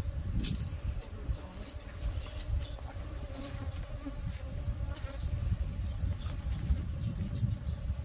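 Korean native honeybees (Asian honeybees) buzzing in a steady hum around a wooden box hive where a swarm is being hived, with scattered faint rustles and clicks.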